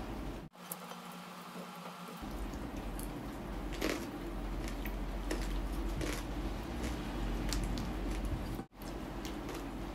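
Close-miked eating sounds: wet chewing and lip smacks as fried chicken and rice are eaten by hand, scattered short clicks over a steady low hum. The sound cuts out briefly twice, about half a second in and near the end.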